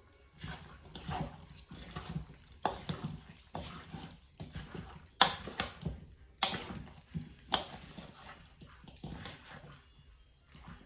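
Plastic spatula folding chunks of fruit through cream and condensed milk in a plastic mixing bowl: irregular wet squelching and scraping strokes, roughly one a second, the loudest about five seconds in.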